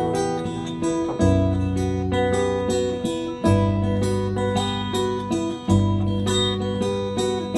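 Instrumental passage of a slow neofolk song: acoustic guitar strummed chords, a fresh strum about every two seconds, each left to ring.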